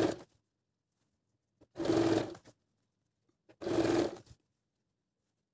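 Electric domestic sewing machine stitching in short runs: it stops just after the start, then runs again briefly about two seconds in and about four seconds in, with pauses between.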